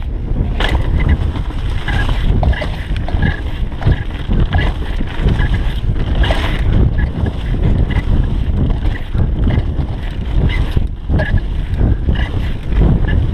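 Wind buffeting the microphone of a camera on a mountain bike during a fast descent, over the sound of tyres rolling across dry leaves and dirt. Short clicks and rattles from the bike are scattered throughout.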